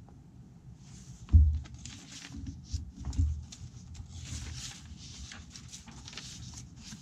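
Pages of a thick handmade junk journal being turned by hand: paper rustling and sliding, with soft thumps as the stitched pages flop down, the loudest about a second and a half in and another about three seconds in.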